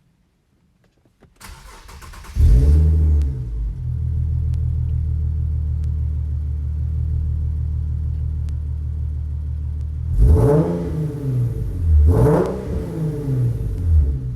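Infiniti Q50 with an aftermarket exhaust starting up about two seconds in: it cranks briefly, then catches with a loud flare. It settles into a steady idle, then the throttle is blipped twice near the end, the pitch rising and falling each time.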